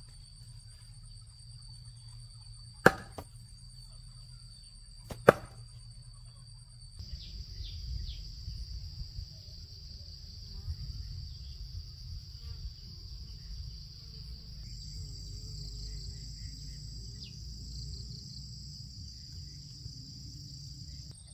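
Steady high-pitched insect buzzing, with two sharp knocks about two and a half seconds apart near the start. Partway through, the buzzing changes pitch and a low rustling noise runs under it.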